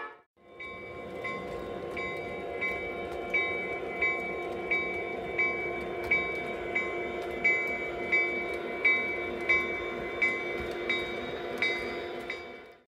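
O scale model train rolling past on the track with a steady running hum and a regular sharp click about every 0.7 seconds.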